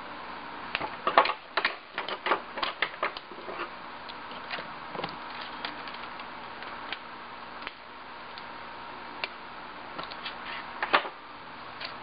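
Irregular sharp clicks and taps, bunched in the first few seconds and again near the end, from aluminum foil tape being handled and pressed onto the edges of a glass display case.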